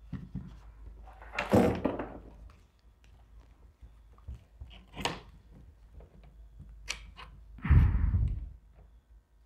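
Pressure washer wand and extension pieces being handled and fitted together: a few dull thunks and knocks, with a sharp click about five seconds in and another heavier thud near the end, as the extension's quick-connect fitting is tried on the wand.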